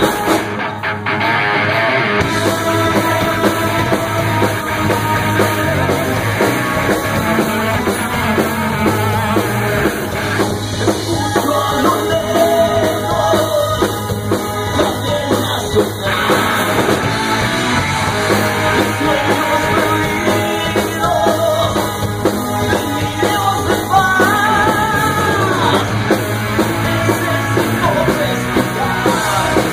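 Live rock band playing loudly: distorted electric guitars, bass, a drum kit and keyboards, with a singer's voice over them.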